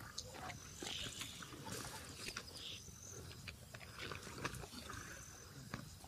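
Spotted hyena feeding on a carcass: faint chewing and tearing at the meat, with scattered small clicks and rustles.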